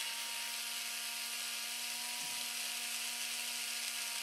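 Cordless electric screwdriver running steadily at one speed with a constant motor whine, unscrewing a fastener from an RC truck's rear hub. There is a slight wobble in the whine about two seconds in.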